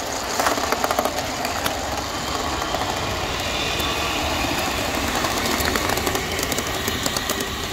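Scale-model New South Wales C38 class steam locomotive running slowly along the track: a steady hiss with frequent sharp clicks, the loudest cluster about half a second to a second in.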